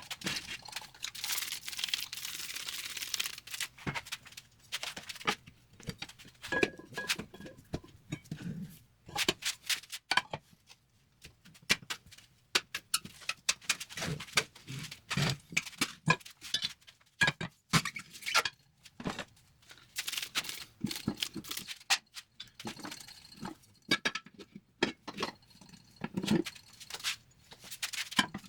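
Tyre dismounting on a manual tyre changer: irregular clanks, knocks and scrapes of metal tools and bars against steel wheel rims, with a few seconds of hissing noise near the start.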